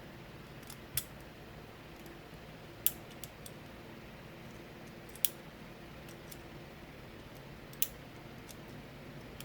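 Small sharp metallic clicks, four louder ones a couple of seconds apart with a few fainter ticks between, as lever-picking tools work inside a Yale 4-lever padlock.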